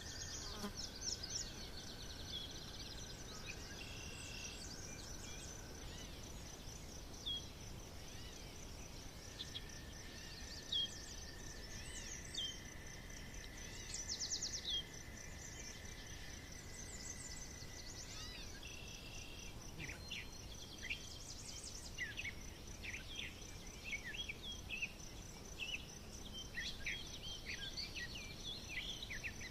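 Forest birds singing, with many short chirps and whistled notes that grow busier in the second half, over a steady high insect trill and a few long held tones.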